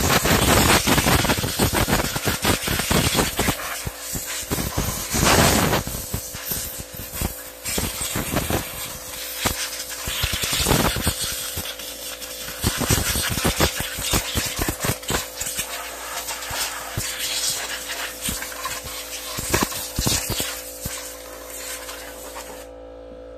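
Compressed-air blow gun hissing as it blasts mouse-nest debris out of a riding mower's engine. It runs in one long blast at first, then in repeated short blasts, and stops near the end.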